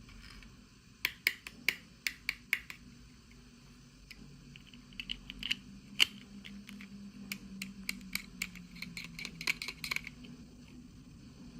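Irregular sharp clicks and light taps of small hard plastic pieces and packaging being handled while miniature toys are unboxed, a few strokes a second in clusters.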